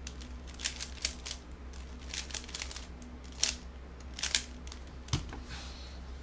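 Plastic 3x3 puzzle cube being turned by hand: quick groups of rasping clicks as its layers are twisted through an algorithm. A soft thump a little after five seconds in as the cube is set down on the mat.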